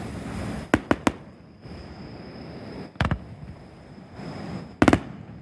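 Fireworks shells bursting with sharp bangs: three quick bangs about a second in, another near the middle, and a fast double bang near the end.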